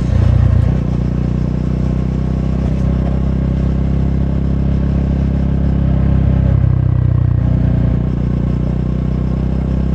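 Triumph Scrambler 400X's single-cylinder engine running on its stock exhaust, idling steadily with a brief throttle blip just after the start and another around seven seconds in.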